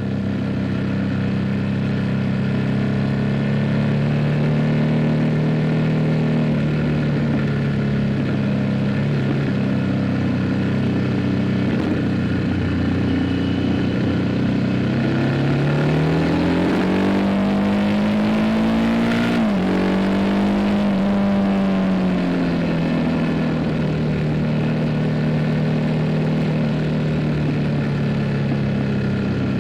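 Harley-Davidson Pan America's V-twin engine through a Screamin' Eagle Street Cannon exhaust, running steadily. About halfway through it revs up, climbing in pitch for a few seconds, then drops sharply and settles back to its steady note.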